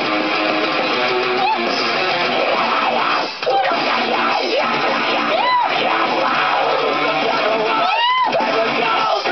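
A girl meowing a few times, each meow a short rising-and-falling call, over a loud rock song with strummed electric guitar.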